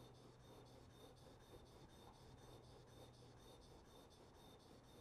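Faint back-and-forth scraping of a Japanese chisel's bevel being sharpened on a wet 1000-grit Suehiro Cerax water stone, with pressure kept on the hard-steel cutting edge.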